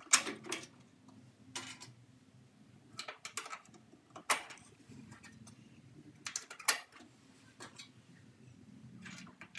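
Light metal clicks and clinks at irregular intervals, from cotter pins being fitted into propane grill burners and from hands knocking the steel burner tubes and cooking grate.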